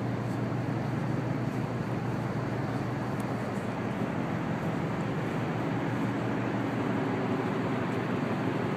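Steady low drone with an even rushing noise from a large ship's running machinery, unchanging throughout.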